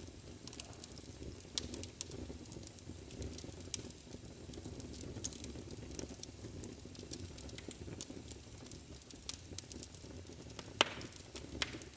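Wood fire burning in a fireplace: a steady low rumble of flames with frequent scattered crackles and pops, the loudest pop a little over ten seconds in.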